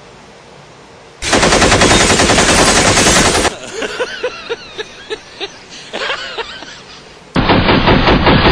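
Machine-gun fire in two long bursts of rapid automatic shots. The first starts about a second in and lasts about two seconds. After a quieter gap with a few short pitched sounds, the second starts near the end.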